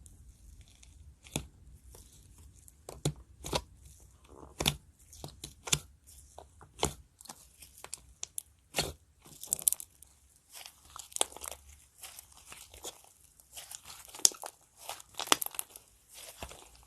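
Clay slime being squeezed and kneaded by hand, giving irregular sticky crackles and pops.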